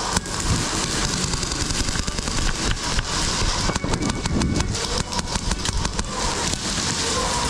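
Airsoft guns firing in rapid full-auto bursts, a fast chattering run of sharp cracks that is busiest about four seconds in, over a steady noisy background.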